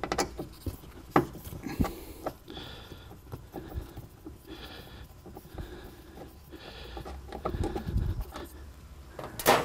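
Handling noise inside a car trunk: the trunk liner rustling as it is pulled back, with scattered small clicks and knocks as the antenna bracket's ground screw is worked loose, and a sharper click near the end.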